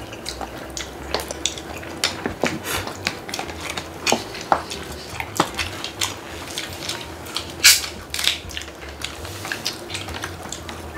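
Eating sounds at a table: chopsticks and forks clicking and clinking against bowls and paper noodle cups, with ramen noodles being slurped. Many light clicks, with the loudest pair of sounds a little before and after eight seconds in.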